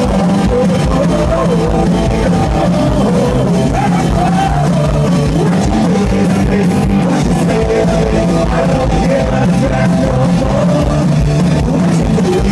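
Punk rock band playing live: electric guitars, bass and drum kit keeping a steady beat, with a singer's voice over them.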